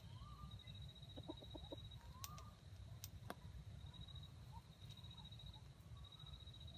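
Faint, soft clucking from a red junglefowl rooster: a quick run of about four short clucks a second or so in, and a couple of brief rising calls. A steady high-pitched buzz runs underneath.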